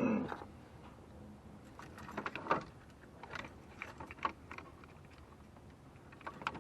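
Scattered light clicks and taps of plastic parts being handled, a few of them bunched near the middle, as an HVAC control piece is worked free of the dashboard by hand.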